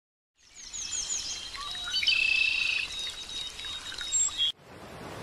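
Songbirds chirping and trilling over a soft outdoor hiss, with quick repeated downward chirps and a brief buzzy trill in the middle. About four and a half seconds in it cuts off and a rising rush of surf begins.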